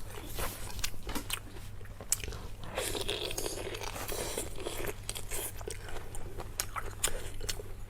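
A person eating close to the microphone: biting and chewing, with many irregular crunches and clicks.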